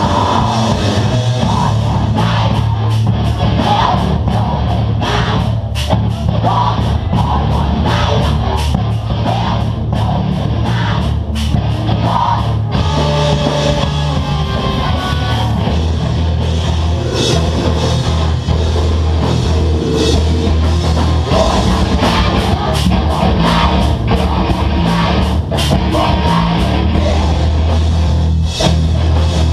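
A live heavy rock band playing loud, with distorted guitars, heavy bass notes and drums with frequent cymbal hits, and some vocals.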